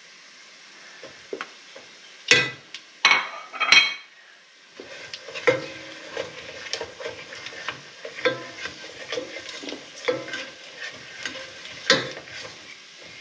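Pork and ginger sizzling in hot oil in a pot while a spatula stirs and scrapes them around. About two to four seconds in, the spatula clinks sharply three times against the dishes; the sizzling and stirring grow busier from about five seconds in.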